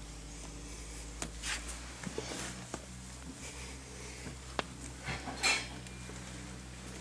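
Scattered clicks and short rustles of a handheld camera being moved and handled, the loudest about a second and a half, two and a quarter and five and a half seconds in, over a faint steady low hum.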